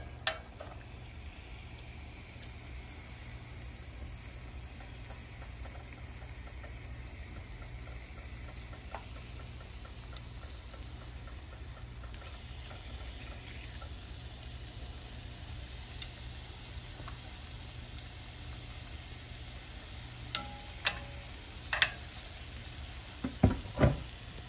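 Seasoned chicken breasts sizzling steadily in a buttered cast-iron grill pan. Now and then metal tongs click against the pan, with a few louder knocks and clicks close together near the end.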